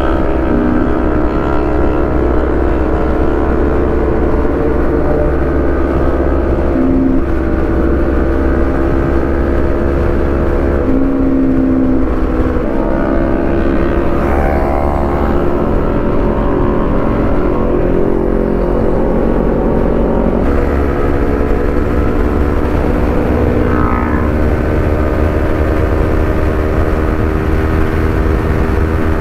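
Kawasaki Ninja 400's parallel-twin engine running at a steady cruise while ridden, with wind rumbling on the helmet microphone. The engine note shifts a few times, about 11 and 13 seconds in and again about 20 seconds in.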